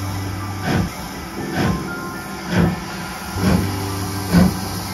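Steam locomotive 61306, an LNER Thompson B1 two-cylinder 4-6-0, passing at low speed, its exhaust chuffing evenly at a little under one beat a second. A steady low hum sits under the chuffs near the start and again near the end.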